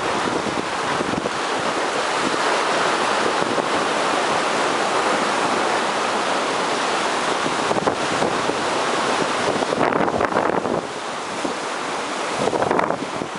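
Heavy typhoon-swell surf breaking, a steady wash of waves, with wind buffeting the microphone, gustier and more broken in the last few seconds.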